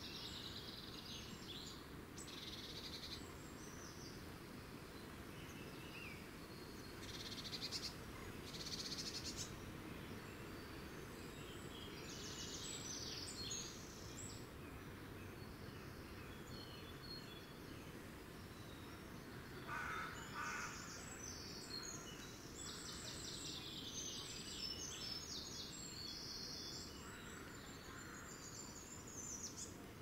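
Small woodland songbirds chirping and singing in short, high phrases, busiest in the second half, over a steady low background rumble.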